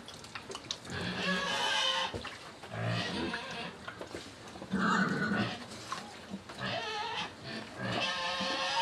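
Pigs squealing: five separate drawn-out calls, each about half a second to a second long, spaced a second or two apart.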